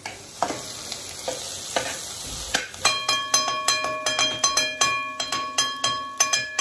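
Food sizzling in a wide metal pan. From about three seconds in, a metal slotted ladle strikes the pan in a quick rhythm of about three to four hits a second, each hit leaving the metal ringing.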